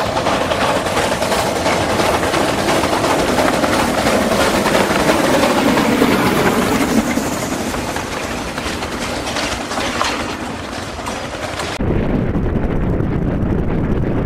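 Steam locomotive passing close with a train of open steel wagons: a loud rushing noise of steam and wheels on rail, broken by many short sharp sounds. About twelve seconds in it cuts abruptly to a deep, low rumble as a snowplow train pushes through snow.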